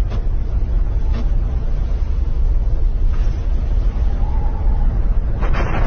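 Explosive volcanic eruption: a loud, deep, continuous rumble with a few sharp cracks, about a second in, after three seconds and near the end.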